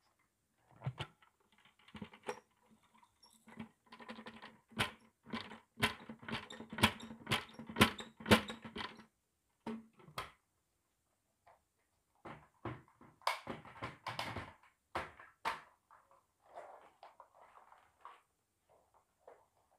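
Dry red lentils rattling and pattering onto a thick pile carpet as a run of many small clicks, densest over a few seconds in the first half. A second, shorter run of clicks and knocks follows, and no vacuum motor is running.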